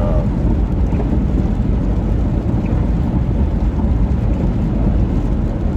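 Steady low rumble of a van driving on a wet road, heard from inside the cabin, with an even hiss of tyres and rain over it.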